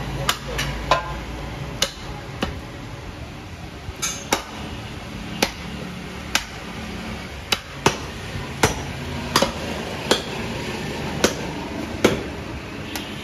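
A butcher's cleaver chopping beef on a wooden chopping block: a run of sharp, irregular knocks, roughly one every half second to a second.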